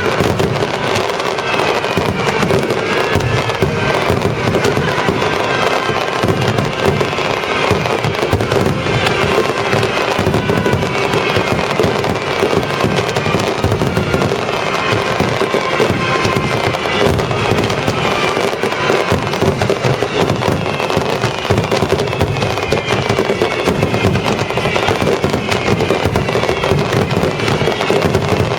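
Dense, unbroken barrage of fireworks bursts and crackling, with symphonic orchestral music playing over loudspeakers.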